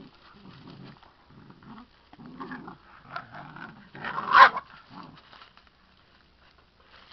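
Puppies and an adult dog growling in play while tugging at a cloth, in a run of short low rumbles. One louder, higher-pitched outburst comes about four seconds in, and the growling dies down after about five seconds.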